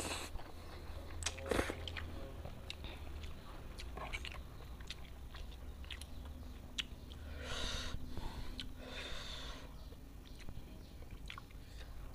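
Close-up eating sounds of spicy fried instant noodles: slurping noodles off a spoon and chewing, with light clicks of a metal spoon and fork, and two longer breathy slurps a little past the middle.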